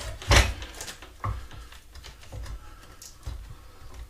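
Knocks and clunks of hands working on a mobility scooter's motor and battery. The loudest knock comes about a third of a second in, a smaller one just after a second, and softer ones follow.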